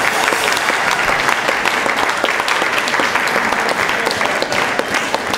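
Audience applauding: steady, dense clapping throughout.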